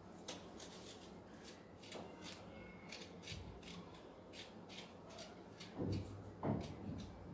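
Steel spoon scraping the skin off fresh ginger root: a quick, irregular series of short scrapes. Two dull knocks about six seconds in.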